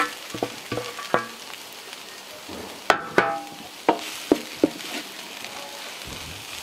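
Wooden spatula knocking and scraping against a wide pan as shredded beef and masala are stir-fried, over a steady sizzle of frying. The knocks come in two irregular runs, one at the start and one about three to five seconds in, then only the sizzle is left.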